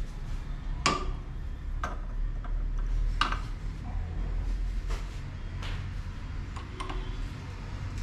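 Irregular metallic clinks and taps from tools and metal parts being handled during work on a diesel pump, over a steady low hum. The clearest clinks come about a second in and about three seconds in.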